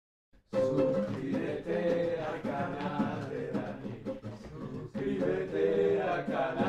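Silence for about half a second, then men singing to guitar accompaniment.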